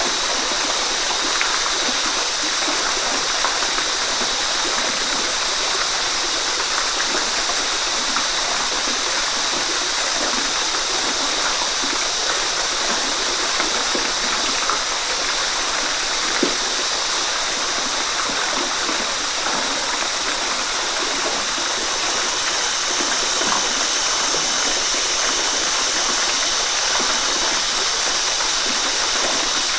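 Waterfall: water falling and rushing in a steady, even hiss with small splashes.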